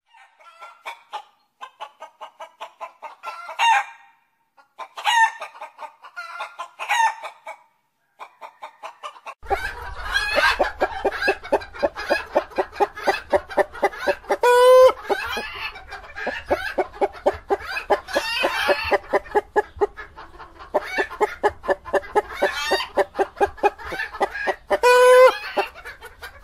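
Domestic hens clucking in runs of short, rapid clucks broken by louder squawking calls. About nine seconds in, a denser stretch of clucking begins over a low steady hum, with two short held calls near the middle and near the end.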